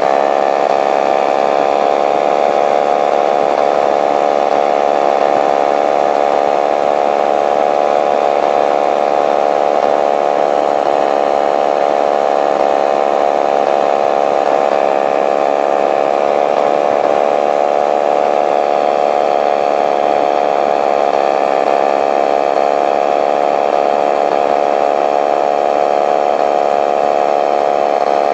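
Paramotor engine and propeller running steadily at cruise power in flight, heard close up from the aircraft, with only slight changes in pitch.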